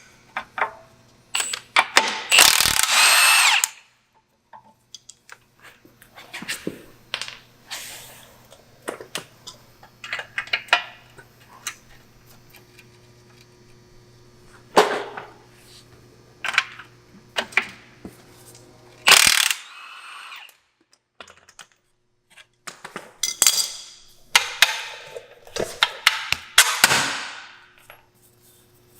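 Hand and power tools at work on a car: short bursts from a power tool, ratchet clicking, and scattered metal clinks and knocks.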